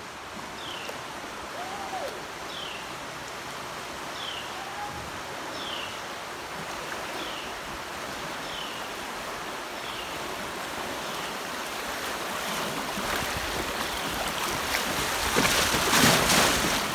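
Rushing water of small creek rapids, growing steadily louder as the kayak runs into the riffle and loudest near the end, with whitewater churning beside the boat. A short, high falling note repeats about once a second through the first half.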